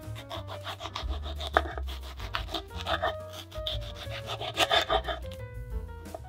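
Serrated knife sawing back and forth through a tomato on a wooden cutting board: quick rasping strokes, the blade scraping the board as each slice comes free. Background music plays underneath.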